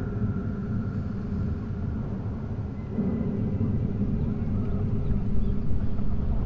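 Low, rumbling drone with several held tones underneath, laid under a title card as an ominous soundtrack; it swells again about three seconds in and slowly grows louder.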